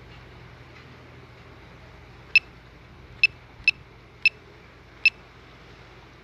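Five short, high-pitched electronic beeps from the DJI Mavic Pro's flight controls, starting a couple of seconds in and irregularly spaced over about three seconds, over a faint steady hum.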